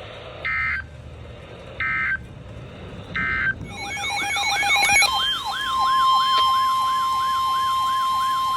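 Emergency Alert System broadcast signals: three short digital data screeches about 1.3 seconds apart, the end-of-message bursts that close a warning. About three and a half seconds in, a rapidly repeating siren-like wail starts, and a second later a steady high alert tone joins it, announcing the next severe thunderstorm warning.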